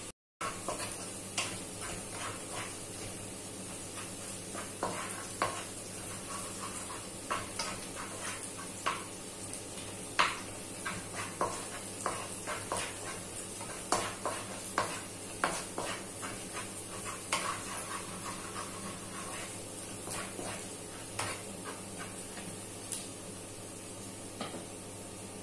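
Minced garlic sizzling in melted butter in a wok, a steady hiss, while a wooden spatula stirs and scrapes it, knocking against the pan at irregular moments throughout.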